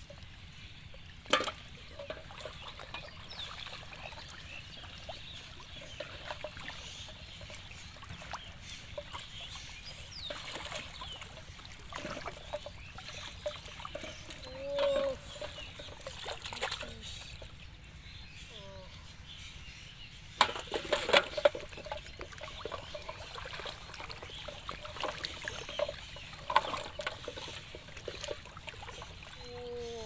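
Shallow pond water sloshing and trickling as someone wades and handles gear in it, with a few sharp splashes, the loudest about a second in and a quick cluster about two-thirds of the way through.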